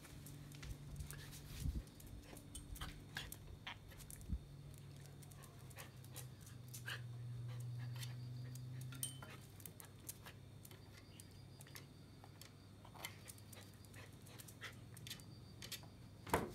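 A Jack Russell terrier panting as it moves about, with many scattered sharp clicks and taps. A low steady hum runs underneath and grows louder for a few seconds around the middle.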